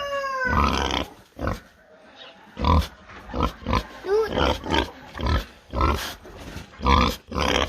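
Large potbelly pig grunting over and over in short grunts, about two a second, while it is being fed apples. A rooster's crow trails off at the very start.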